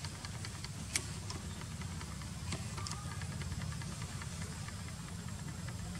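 A low, steady engine hum, like a motor idling, with scattered light clicks over it and a sharper click about a second in.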